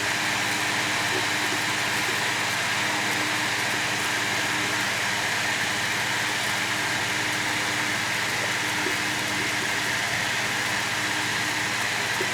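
Steady, unchanging machine hum with a constant rushing noise, like an engine idling or a fan running.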